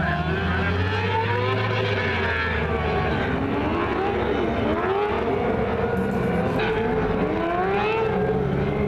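Several mini sprint race car engines revving up and easing off as they lap the track. Their pitches rise and fall and cross over one another.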